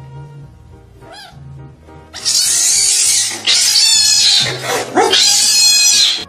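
A cat hissing angrily in three long, loud bursts starting about two seconds in, reacting to the scent of another cat on a person's hand. Quiet background music runs underneath.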